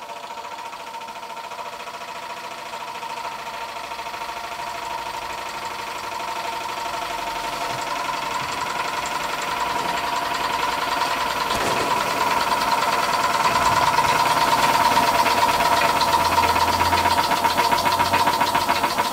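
Scratch-built single-cylinder oscillating model steam engine running fast on residual steam with its regulator wide open and the burner off: a rapid, even beat of exhaust puffs that grows steadily louder.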